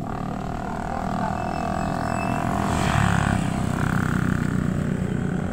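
Motorcycle passing close by on the road, its engine growing louder to a peak about three seconds in and then easing off, over the low rumble of traffic.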